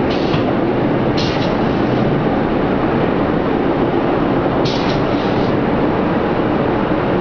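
Roller machine for printed woven sacks running steadily, a loud, dense mechanical noise, with three brief hissing bursts: near the start, about a second in, and near five seconds.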